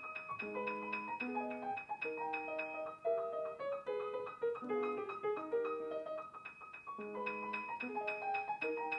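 A Yamaha art-case grand piano played fast: a quick melody in the middle register runs under a high note that is struck again and again. The phrase starts over about seven seconds in.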